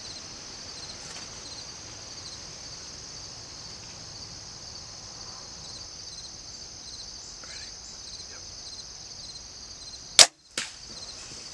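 Steady chorus of insects, then near the end the sharp crack of a bow shot, followed about half a second later by a second, fainter snap.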